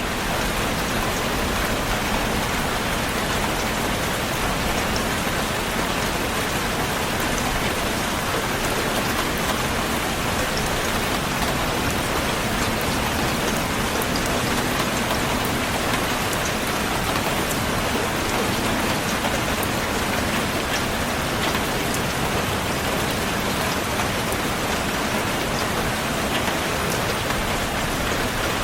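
Heavy rain falling steadily, a dense, even hiss with scattered individual drop ticks.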